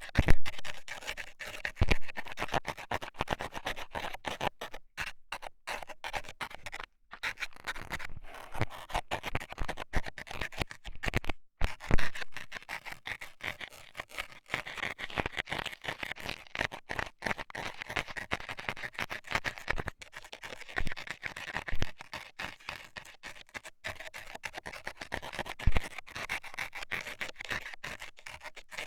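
Close-up ASMR ear-cleaning sounds: a metal dental scaler scratching and scraping in an ear, a dense run of fine scratchy clicks with a few sharper knocks, the loudest near the start and about twelve seconds in.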